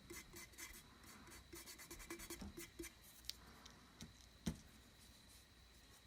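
Faint, quick scratchy rubbing of a cotton swab wiping paint off the tumbler's coated surface, then a light click about three seconds in and a louder knock a second later.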